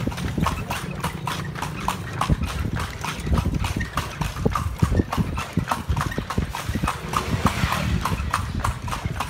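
Horse's hooves clip-clopping at a steady, even pace on a paved street as it pulls a kalesa (horse-drawn carriage), over a low rumble.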